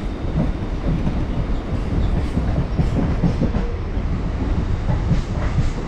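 Suburban electric local train running along the track, heard from on board: a steady rumble of wheels on rails with irregular clattering.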